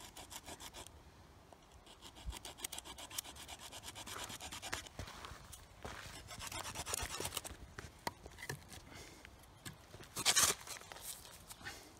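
A notch being ground into a white pine hearth board with a rock: quick, rhythmic rasping strokes of stone on wood in several bouts with short pauses, and one louder scrape near the end.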